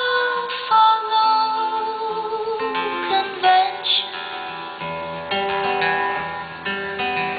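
Live acoustic guitar music: plucked and strummed chords with held melody notes over them, in the closing bars of a song.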